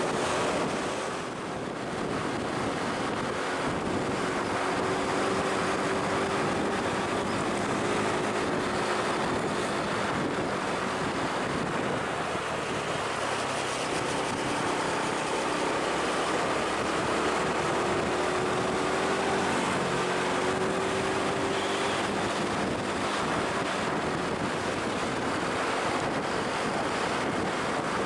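A large vehicle's engine running steadily, its pitch drifting gently up and down, under heavy wind noise on the microphone.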